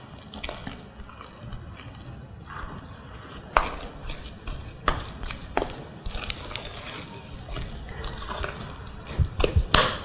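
A spatula stirring flour into thick pumpkin purée in a glass bowl: a steady scraping rub broken by irregular knocks of the spatula against the glass, coming thickest near the end.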